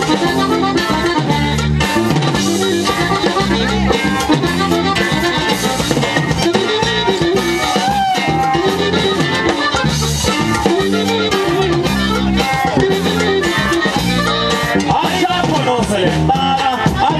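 A live Mexican regional band playing an instrumental passage: accordion, guitars, bass and a drum kit keeping a steady beat, loud and continuous.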